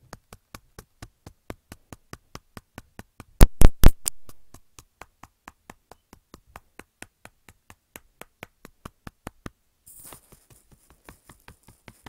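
Rapid, even light tapping, about five taps a second, like tapping on a phone screen. Three much louder knocks come a little over three seconds in, and a hiss starts near the end.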